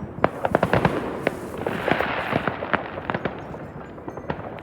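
New Year's fireworks and firecrackers going off all around: a rapid, irregular string of bangs and cracks, thickest in the first second or so, with a hissing rush about two seconds in.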